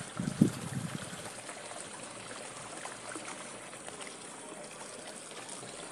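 Steady rushing, trickling water at a fishpond, with a brief louder low burst about half a second in.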